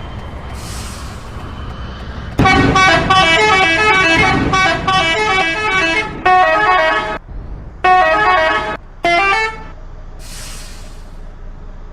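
Bus telolet horn playing quick, stepping runs of several tones at once: one long run of about four seconds, then three shorter bursts, over the steady hum of the idling engine. A short hiss of air near the end.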